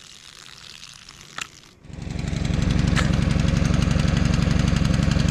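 A pressure washer's small gasoline engine starting about two seconds in, after a single click, then running steadily with a fast, even firing beat.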